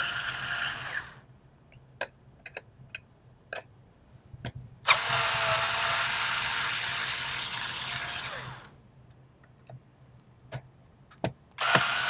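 Electric screwdriver running in short bursts as it backs out the screws holding a server CPU heat sink. A run stops about a second in, another lasts about four seconds in the middle and a third starts near the end, with light clicks and taps between them.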